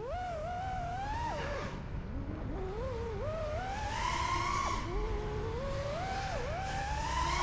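FPV quadcopter's brushless motors and propellers whining, the pitch rising and falling with the throttle, climbing gradually about halfway through with quick dips near the end.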